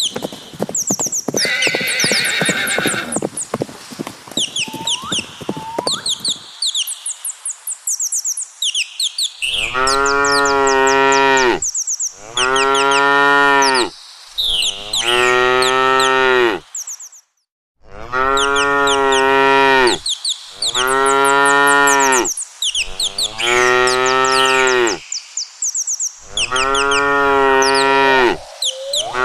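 Cattle mooing: about eight long, deep moos, one after another, starting about a third of the way in. High chirping runs underneath, and the first few seconds hold only clicking and chirping.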